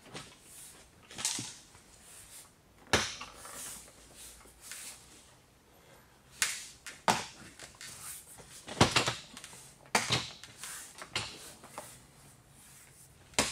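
Plastic clips of a Peugeot 607 door trim panel being pressed home into the door: a string of irregular sharp knocks and clicks, with rustling of the panel and gloved hands between.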